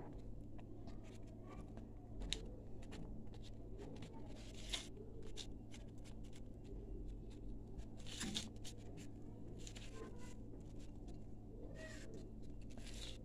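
Faint crinkling and rustling of a banana leaf as it is folded by hand into a parcel around a piece of fish, in scattered soft crackles, over a steady low hum.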